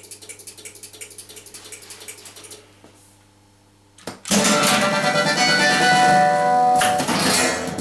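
Music: a quick, rhythmic plucked-sounding pattern over a low steady hum, a short lull, then a click about four seconds in and loud music with many held notes.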